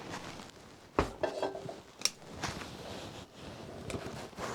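Kitchen cookware and utensils clattering: a few sharp knocks of pots and utensils being handled and set down, the loudest about a second in, followed by brief ringing.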